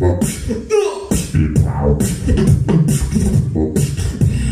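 A beatboxer performing into a cupped handheld microphone, amplified: a steady beat of crisp hi-hat and snare clicks over a hummed bass line, with a falling vocal sweep about a second in.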